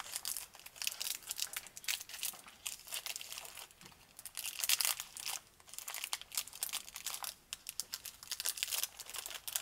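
Shiny pink foil candy-bar wrapper crinkling and tearing as it is peeled open by hand, in many small irregular crackles, loudest about halfway through.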